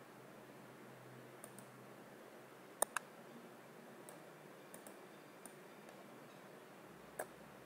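Quiet room tone broken by a few computer mouse clicks: a quick double click about three seconds in, a single click near the end, and some fainter ticks between.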